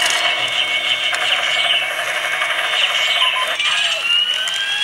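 Matchbox Strike Hawk toy helicopter's electronic flight sound effects playing through its small built-in speaker: a steady hissing engine-and-rotor noise, with a rising whine starting about three and a half seconds in.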